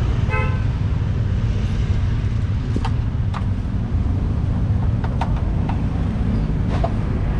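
Street traffic running steadily as a low rumble, with a few short clicks and knocks over it.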